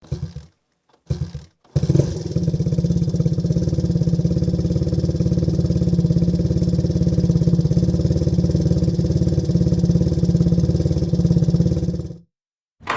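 Motorcycle engine: two short bursts, then it catches and runs at a steady, even idle for about ten seconds before cutting off abruptly.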